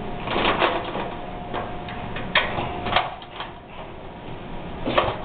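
Scattered light clicks and taps from wires being handled inside a sheet-metal light fixture housing, with two sharper clicks about halfway through.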